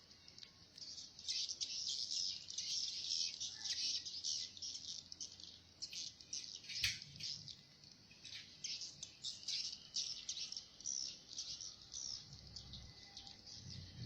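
Edible-nest swiftlets twittering in a dense, continuous mass of high chirps, starting about a second in. One sharp click about halfway through.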